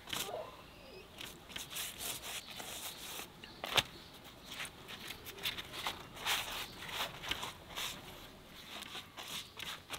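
Sheets of thin lavash flatbread being handled and laid on a metal tray: dry crinkling and rustling with scattered light clicks, one sharper click about four seconds in.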